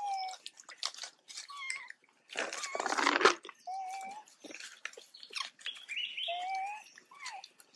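Long-tailed macaques rustling and crunching through dry leaf litter, loudest about three seconds in, with several short whistled coo calls, some rising and some falling in pitch.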